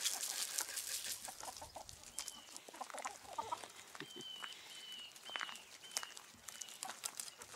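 A flock of hens clucking softly as they peck at scattered feed on the ground, with many sharp clicks. From about four seconds in, a high short chirp repeats roughly twice a second.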